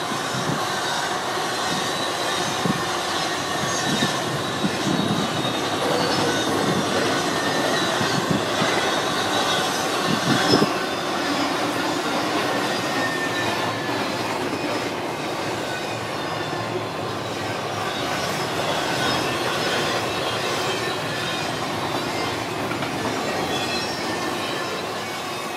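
Double-stack intermodal container cars rolling past on steel wheels: a steady rumble and rattle of wheels on rail, with a faint high wheel squeal and occasional clacks over rail joints, the loudest about ten seconds in.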